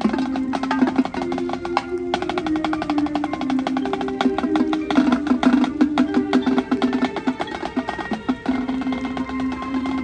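High school marching band playing: drums and percussion striking a fast, busy pattern over held pitched notes.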